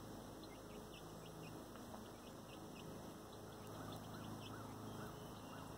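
Young Orpington pullets cheeping softly: short high peeps through the first half, then a string of lower rising-and-falling peeps in the second half.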